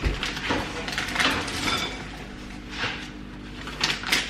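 Kitchen clatter: a metal baking tray and utensils being handled, with a knock right at the start and scattered clinks after it.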